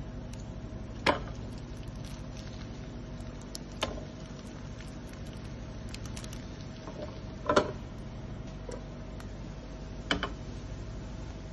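Bread slices frying in a nonstick pan with a quiet steady sizzle and small crackles. A spatula clicks and scrapes against the pan four times as the slices are turned and pushed into place.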